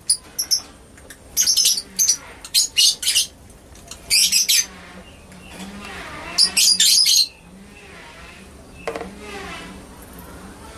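Lovebird giving shrill, rapid chirping calls in five quick bursts, which stop about seven seconds in.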